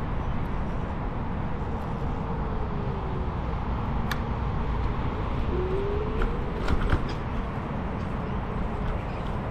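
Steady low rumble of a scooter ride, the wheels rolling and air rushing past. A faint whine falls and later rises in pitch, and a few light clicks come about four seconds in and again between six and seven seconds.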